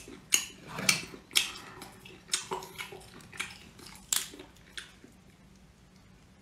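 Close-up mouth sounds of someone chewing and biting into shellfish meat, a string of short smacks and clicks that stops about five seconds in.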